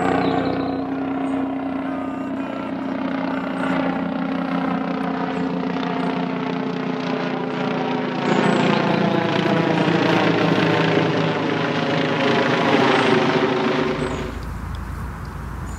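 An aircraft flying over, a steady many-toned engine drone that slowly falls in pitch as it passes. It stops abruptly about fourteen seconds in.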